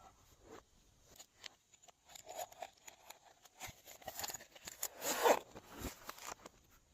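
Glossy slime being worked by hand, making scattered sticky clicks and soft squelches, with a louder squelch about five seconds in.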